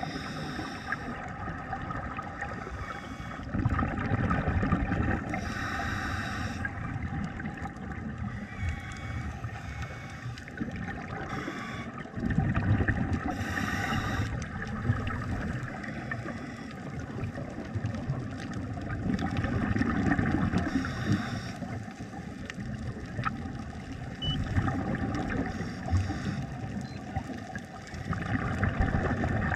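Scuba regulator breathing heard underwater: exhaled bubbles gurgle out in surges every few seconds over a steady wash of water noise.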